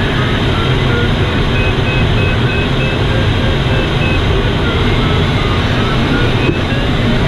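Steady rush of airflow in a glider's cockpit, with the variometer's beeping tone changing pitch as the glider climbs in a thermal; the tone rises near the end.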